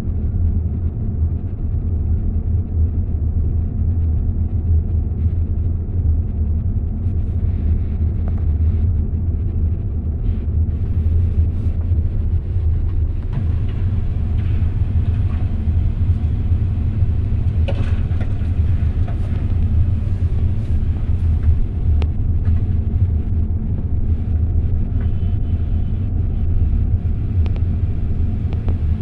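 Excavator's diesel engine running steadily, a deep continuous rumble heard from inside the operator's cab.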